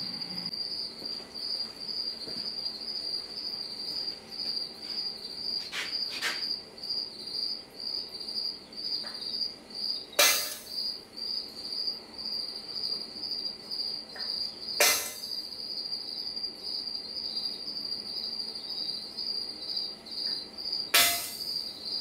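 A cricket chirps steadily throughout with a high, pulsing tone. Three sharp metallic strikes come about ten, fifteen and twenty-one seconds in, with fainter taps around six seconds: a hammer on a center punch against thick steel plate.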